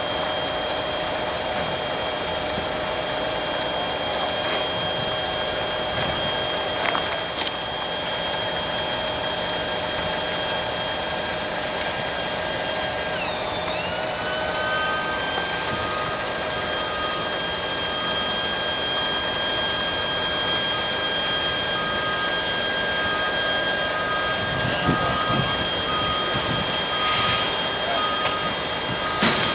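Slow-moving rail work train's steel wheels squealing on the track: several steady high squealing tones that dip and shift in pitch about 13 seconds in, with a couple of clicks around 7 seconds.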